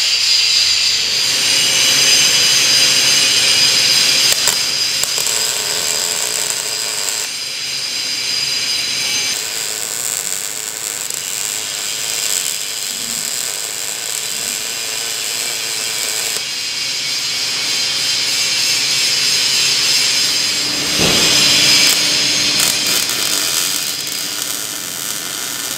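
Electric arc welding on steel: a steady crackling sizzle as weld beads are run along angle iron on a bumper, changing abruptly several times as passes stop and start.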